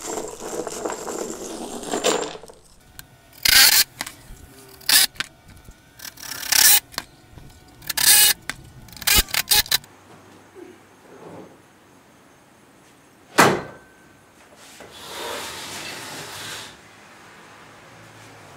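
Washers clinking and a plastic bag rustling, then about seven short, loud bursts of a cordless impact driver running lag screws into the caster plates. Later comes one heavy thud and a couple of seconds of scraping as the wooden workbench is tipped over on the concrete floor.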